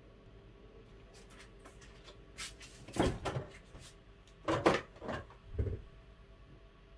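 A handful of short, sharp knocks and clunks, like a cupboard door or dishes being handled: faint ticks about a second in, a loud knock about three seconds in, a pair of loud knocks around four and a half seconds, then a duller low thump.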